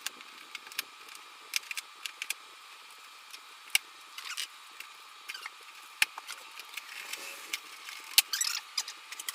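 Irregular sharp plastic clicks and snaps with rustling, from trunk trim clips and the trunk liner being worked loose by hand; the loudest snap comes near the end, followed by a quick cluster of clicks and scraping.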